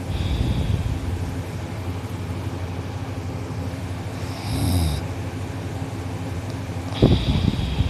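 A sleeping teenage boy snoring on his back with his mouth closed: three snores a few seconds apart, near the start, about four and a half seconds in, and about seven seconds in.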